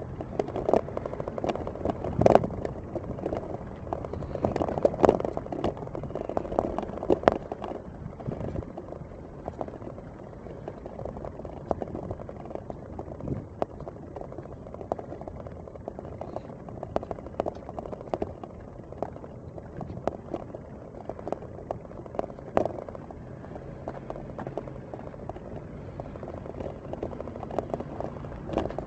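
Wheels rolling over brick paving, a steady rumble with many small rattles and knocks, busiest in the first few seconds.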